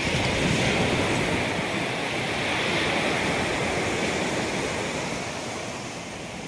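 Sea surf breaking and washing up a sandy beach, a steady rush that eases off near the end.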